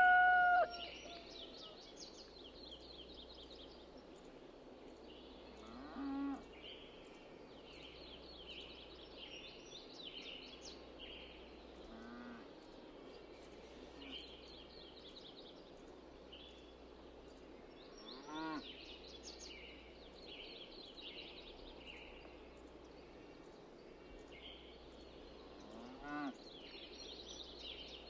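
Farmyard background of small birds chirping steadily. Four short farm-animal calls rise in pitch, spaced about six seconds apart.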